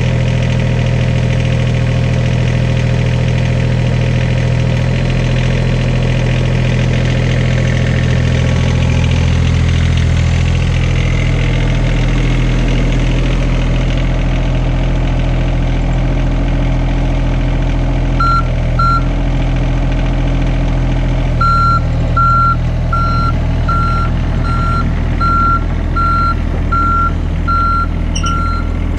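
Heavy machine engine running steadily, joined by a high back-up alarm: two short beeps, then after a pause a steady train of about three beeps every two seconds, as the machine reverses.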